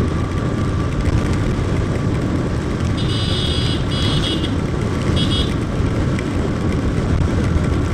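Motorcycle riding along a rain-soaked road: a steady rush of engine, wind and tyre noise on wet tarmac. About three seconds in come three short, high-pitched beeps, the last one briefest.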